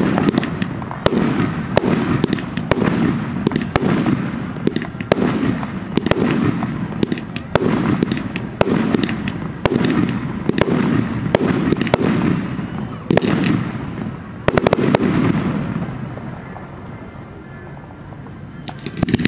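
Aerial fireworks display: shells bursting in quick succession, each sharp bang followed by a low rumbling boom, with crackling between. The barrage eases off for a couple of seconds near the end, then starts again.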